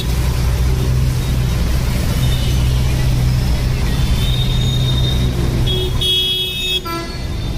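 Motor vehicles running on a flooded street, a steady low engine rumble, with a vehicle horn honking briefly near the end.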